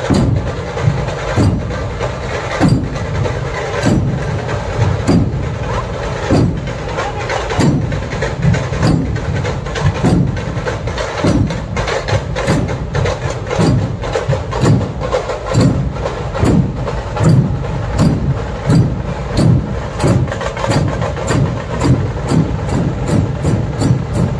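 Dhol-tasha drumming: deep dhol strokes under sharp, quick tasha beats in a steady rhythm, the strikes coming faster near the end.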